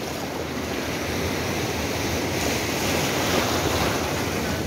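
Shallow sea surf washing in over the sand at the water's edge, a steady rush of water and foam.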